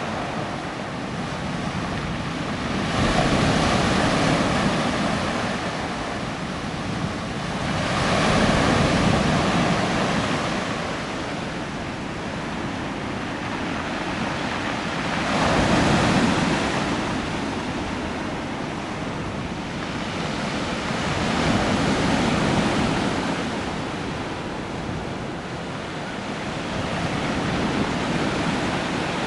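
Sea waves breaking on the shore, the surf swelling and fading about every five to six seconds.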